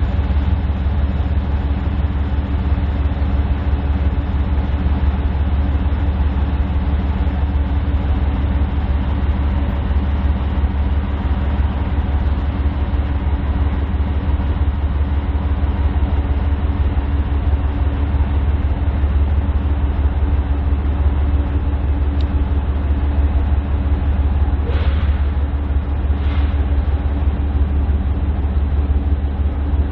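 Diesel freight locomotive engines running steadily with a deep, even rumble. Two brief sharper sounds come a second or so apart near the end.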